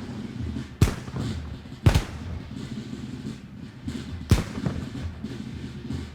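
Battlefield gunfire: three loud sharp shots, about a second in, two seconds in (a quick double) and past four seconds in, with fainter shots between them over a steady low rumble of distant fighting.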